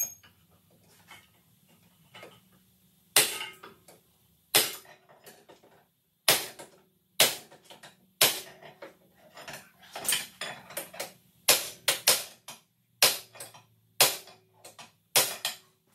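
Repeated hammer blows on the steel rear hub-bearing assembly of a 2017 Chevrolet Traverse, starting about three seconds in and coming one to two a second, some leaving a short metallic ring. The blows are meant to drive out the worn wheel bearing, which is not coming free.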